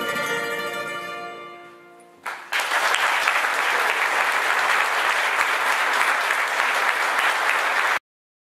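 An acoustic folk band's last chord rings out and fades away over about two seconds. Then audience applause breaks out and carries on strongly until it cuts off abruptly near the end.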